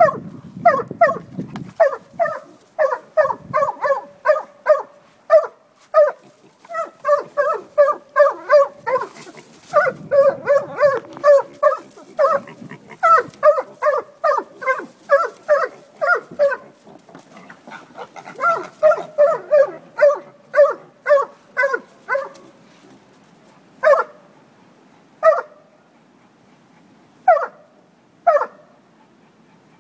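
Dog barking in quick runs of about three barks a second, then slowing to single barks a second or more apart in the last several seconds.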